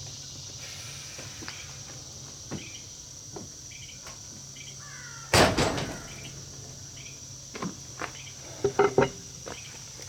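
Steady high insect buzz, like crickets, with scattered light knocks. One loud, ringing knock comes about five seconds in and a quick run of knocks near the end.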